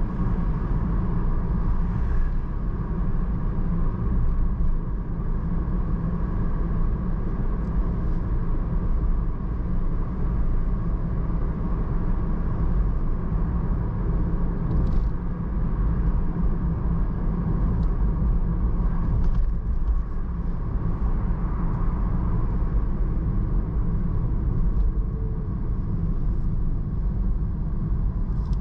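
Car driving with a steady low rumble of engine and tyre noise.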